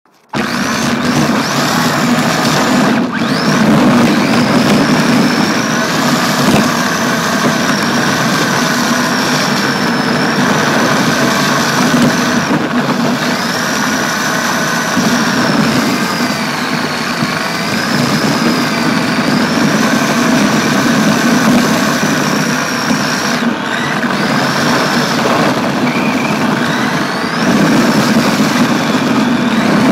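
RC drift car's electric motor and drivetrain heard up close from a camera mounted on the car: a high whine that rises and falls with speed, over steady gear and tyre noise.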